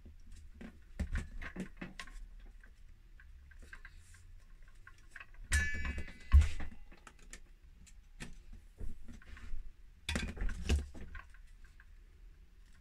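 Handling noises of an unpowered circular saw and its power cord being moved about on a rubber work mat: scattered clicks and knocks, a short scraping squeak about five and a half seconds in, then a thump, and another cluster of knocks near the end.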